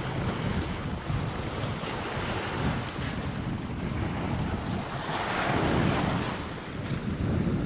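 Sea surf washing on the shore, with wind rumbling on the microphone; the surf surges louder about five seconds in.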